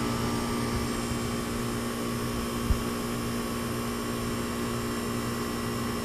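Central air conditioner's outdoor condenser unit running with a steady hum from the compressor and fan, its coils cooled by a water mist; the compressor sounds like it is running a little better. One faint knock about two and a half seconds in.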